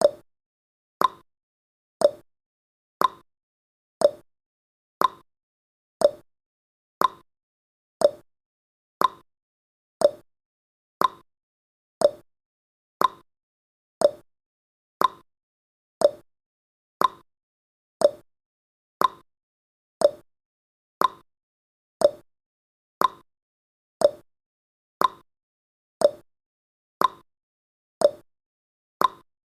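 Countdown-timer ticking sound effect: one sharp clock-like tick every second, alternating between a lower and a higher tick, like a tick-tock.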